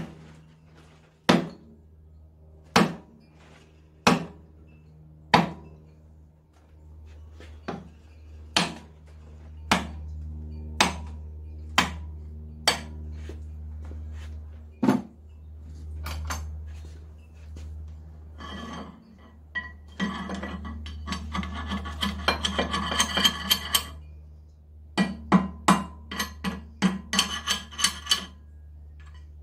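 Sharp metal-on-metal blows from a tool working the gib key at the flywheel hub of a 1923 IHC Type M engine, each ringing briefly, evenly spaced at first, about one every second and a half, then scattered. Later come two runs of rapid metallic clicking and rattling, over a steady low hum.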